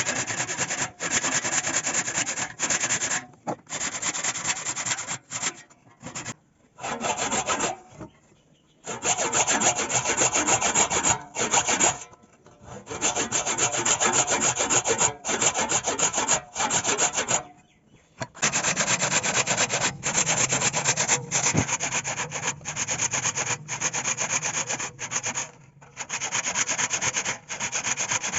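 Wood being sanded by hand in quick back-and-forth rubbing strokes. The strokes come in runs, broken by short pauses.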